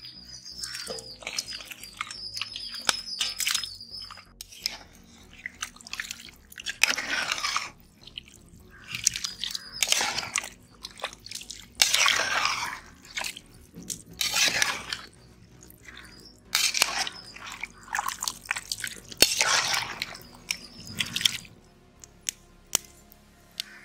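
Raw chicken pieces being stirred into thick curry gravy in an aluminium pot: a run of wet, squelching stirring strokes with sharp clicks of the ladle against the pot. It quietens near the end.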